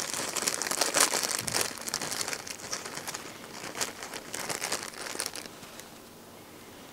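A clear plastic bag crinkling and rustling in the hands as rubber drive belts are taken out of it. A dense run of crackles that fades out about five and a half seconds in.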